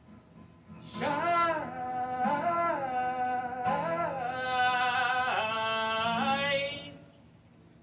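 A man singing one long held, bending vocal line to a strummed acoustic guitar. The voice comes in about a second in and stops near the end, and the guitar strums land about every second and a half.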